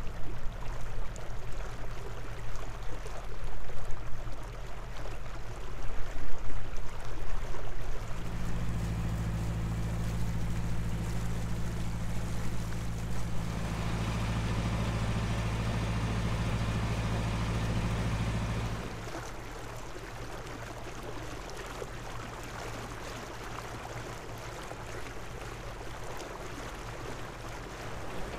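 Narrowboat's diesel engine running steadily at cruising speed, heard close up and loud for about ten seconds in the middle. Either side of that the engine is faint under a rushing noise of water along the hull, gusty in the first few seconds.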